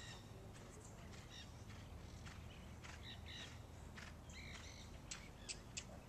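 Faint outdoor ambience of birds calling, several short calls spread through, over a steady low rumble. A few sharp clicks come near the end.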